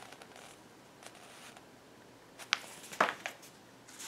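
Book pages being handled and turned in a quiet room: faint paper rustles with a few sharp clicks in the second half.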